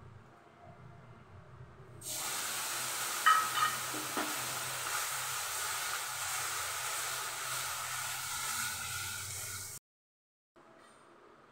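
Steady hiss from sugar heating in an iron kadhai on a gas stove, starting abruptly about two seconds in, with a few sharp knocks of the plastic spatula against the pan soon after as the sugar is stirred. The hiss cuts off suddenly near the end.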